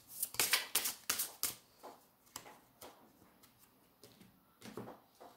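A deck of tarot cards being shuffled and handled by hand: a quick run of crisp card clicks and slaps in the first second and a half, then a few faint taps.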